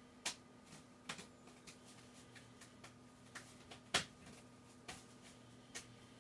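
Quiet room with a faint steady electrical hum and a scattering of short, irregular light clicks and taps, the sharpest about four seconds in.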